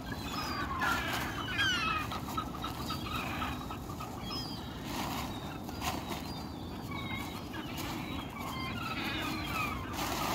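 Birds calling in many short, falling squawks, thickest in the first couple of seconds, over the crackle and rustle of a large plastic bin bag being shaken out.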